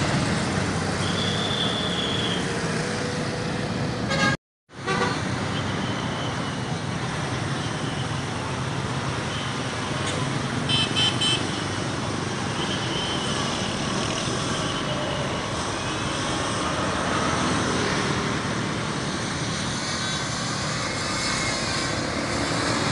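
Busy road traffic at a level crossing: buses, trucks and motorcycles passing with a steady rumble. About eleven seconds in, a vehicle horn gives a quick series of short toots. The sound cuts out for a moment about four seconds in.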